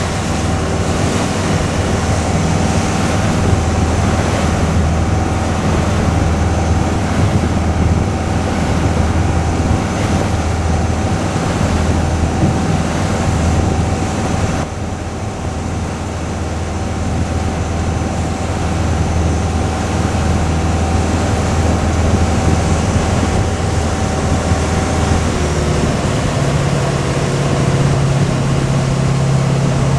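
Ferry's engine running steadily under way, with water rushing along the hull and wind on the microphone. Near the end the engine's hum changes to a different note and a steady whine stops.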